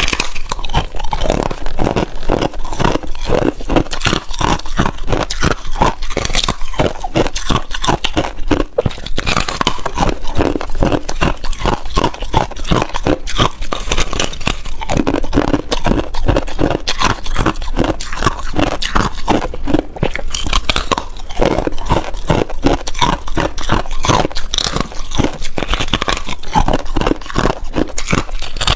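Freezer frost being bitten off in chunks and chewed close to the microphone: a steady run of quick, crisp crunches, several a second, throughout.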